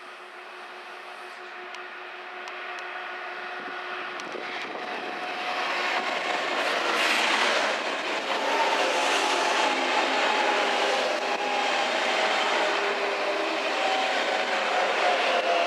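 ICE-T (DB class 411) electric multiple unit pulling into a station platform and rolling past close by: the running noise grows louder over the first six seconds, then holds steady with several whining tones that drift slightly lower as the train slows.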